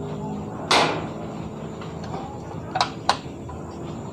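Screwdriver and small metal parts knocking against the sheet-metal frame of a Canon iR6000 copier's document feeder: a short rattling scrape under a second in, then two sharp clicks close together near the end.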